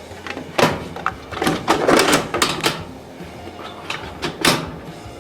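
Sheet-metal LED troffer chassis being handled and fitted into its fixture: a series of metallic knocks, clicks and short rattles, with a cluster of them in the middle and a sharp knock near the end.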